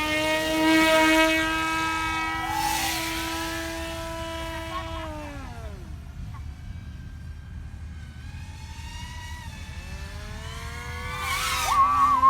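RC model airplane's motor and propeller whining at a steady pitch, then dropping in pitch and fading about five seconds in as it throttles back. It stays faint for a few seconds, then rises again and comes back loud near the end.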